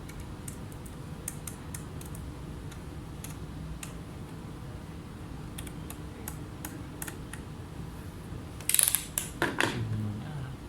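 Scattered small clicks over a steady low hum, then a louder burst of clattering and scraping about nine seconds in, the sound of tools and parts being handled on a repair bench.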